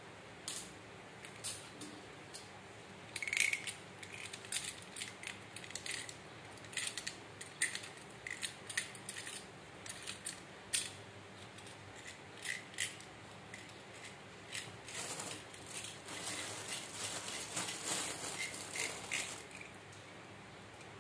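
Snap-off utility knife blade scraping and trimming the stems of oil palm mushrooms: a run of short, irregular scrapes and clicks, growing denser near the end.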